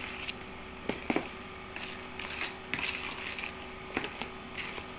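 Metal ladle stirring thick, chunky ice cream mixture in a plastic basin: irregular soft scrapes, squelches and light knocks against the bowl, over a steady faint hum.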